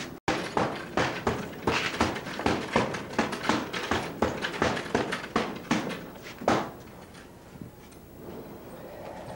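A rapid flurry of punches landing on an Everlast heavy bag, about three or four blows a second, ending with one harder blow about six and a half seconds in.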